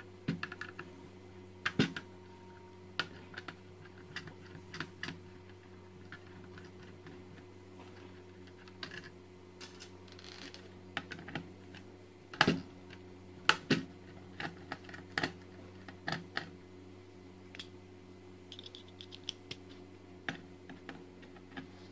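Screwdriver turning out the small screws that hold the hard-drive caddy of an HP ProDesk 400 G3 Mini: irregular light metallic clicks and ticks as the tip catches in the screw heads and knocks the steel caddy, the loudest about halfway through. A faint steady hum runs underneath.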